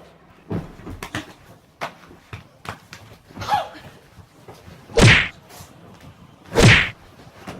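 A run of knocks and thuds, then two loud, heavy slams: one about five seconds in and one near the end.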